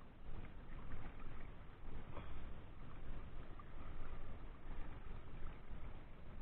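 Steady outdoor waterside noise: wind rumbling on the microphone with water lapping.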